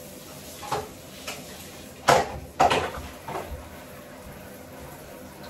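A handful of hard knocks and clunks from objects handled at a recessed metal soap dish in a tiled bathtub wall. The two loudest come about two and two and a half seconds in.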